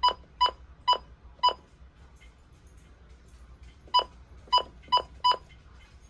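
Short, high electronic beeps from a device's buttons being pressed while its settings are set: four quick beeps, a pause of about two seconds, then four more.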